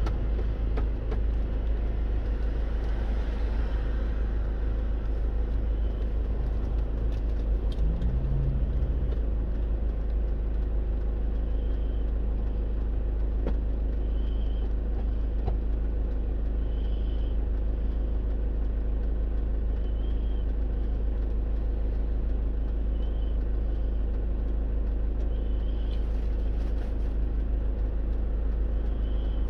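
Steady low rumble of a car driving, heard from inside the cabin: engine and road noise. In the second half a faint short high tone repeats about every three seconds.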